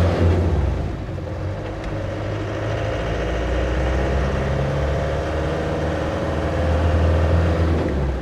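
Land Rover Defender 110's 300Tdi 2.5-litre four-cylinder turbodiesel running on a test drive after its turbo boost hose and wastegate hoses were replaced. The engine note swells louder near the start and again about seven seconds in.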